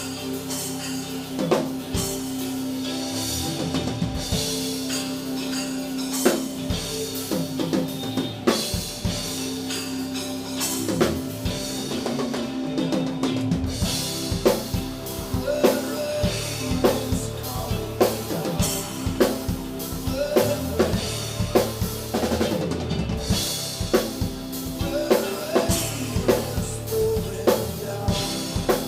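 Drum kit playing a steady rock beat, bass drum and snare rimshots with cymbals, over a backing of sustained bass and keyboard notes, in an instrumental song intro.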